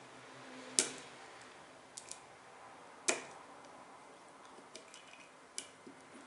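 Sharp, scattered clicks of a screwdriver tip and small parts against the back of a Glock pistol slide as a tube is pushed in to fit a new slide cover plate. Two louder clicks about one and three seconds in, with a few fainter ones after.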